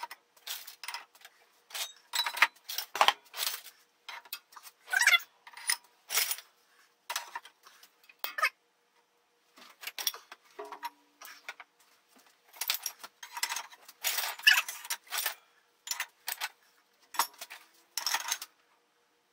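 Pieces of scrap steel tubing and angle clanking and rattling against each other as they are picked out of a bin and dropped into a plastic bucket, in irregular clusters of sharp clanks with a short lull about halfway. This is weight being loaded onto a welded cast iron skillet handle to find its breaking point.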